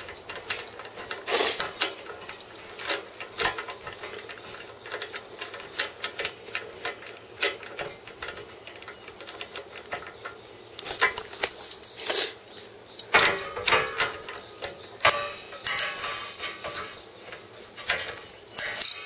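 Irregular metal clicks and clinks of a wrench and socket as a spark plug is threaded back into a small mower engine, with a few louder knocks in the second half.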